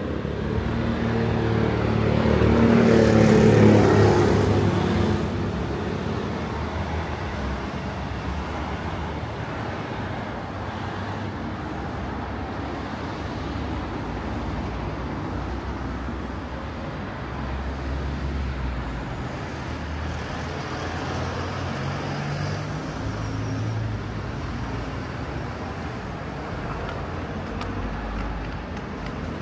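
Street traffic: a motor vehicle passes close, its engine loudest about three to four seconds in, then fades into a steady hum of road traffic with low engine rumble now and then.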